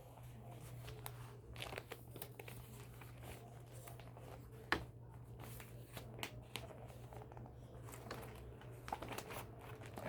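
Paper being handled and crinkled: irregular soft crackles, with one sharper crackle about halfway through, over a faint steady low hum.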